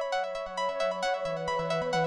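Background music with a steady beat, electronic synthesizer notes over a stepping bass line.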